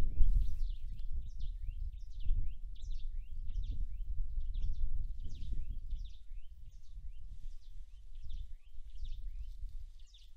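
Small birds calling over and over in short, high, downward-sliding chirps, two or three a second, over a louder low, uneven rumble that eases about halfway through.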